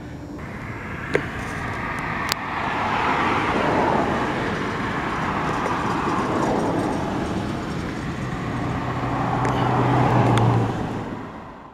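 Road traffic passing: a vehicle goes by, peaking about four seconds in, and another swells past with a low engine hum near the end before the sound fades out.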